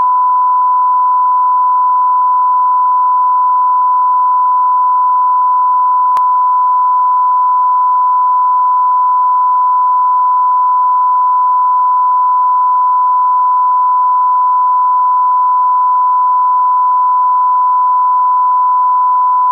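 Steady 1 kHz line-up tone, a single pure loud tone held without a break. It is the reference tone laid over colour bars at the head of a broadcast tape for setting audio levels.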